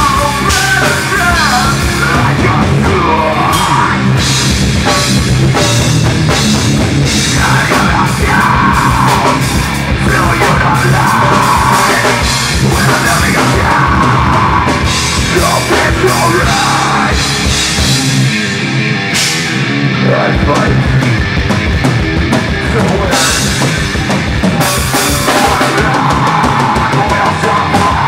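Heavy rock band playing live: distorted guitar, bass and pounding drums, with a vocalist screaming over them. The low end drops out briefly about two-thirds of the way through, then the full band comes back in.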